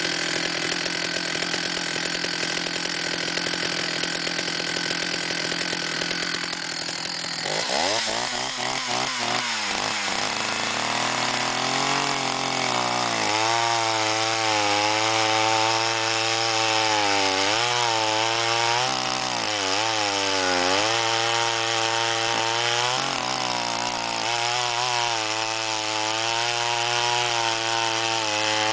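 Jonsereds 621 two-stroke chainsaw with a 20-inch bar and skip-tooth chain cutting through a soft maple log. It runs steadily for about seven seconds, then revs up into the cut, and its pitch dips and recovers repeatedly as the chain loads in the wood.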